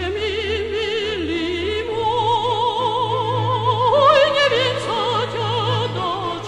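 Operatic female singing with a wide, even vibrato over orchestral accompaniment. The melody climbs to a higher, louder note about four seconds in.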